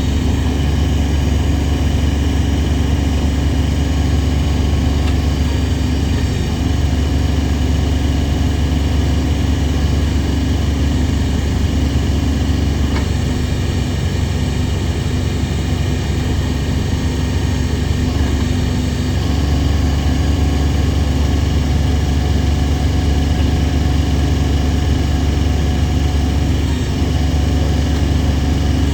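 Kubota BX25D compact tractor's three-cylinder diesel engine running steadily.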